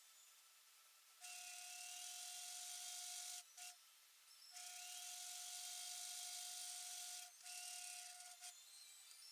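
A faint hiss with a steady high whine, started and stopped three times, the way a small air tool or blower goes on and off.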